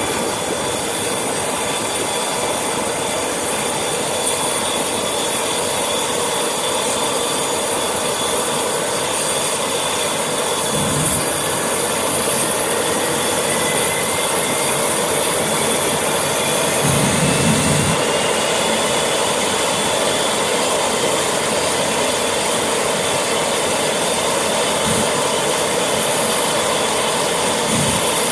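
Pratt & Whitney PW500-series turbofans of Cessna Citation business jets running with a steady loud jet whine. A fainter whine rises slowly in pitch from about eleven seconds in to about twenty, typical of a turbofan spooling up during engine start.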